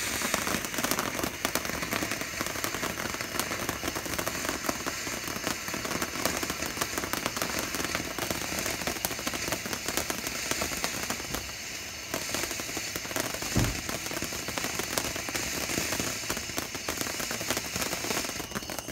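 Cone fountain firework spraying sparks: a steady rushing hiss thick with fine crackling, with one deeper thump about two-thirds of the way through, stopping suddenly at the end.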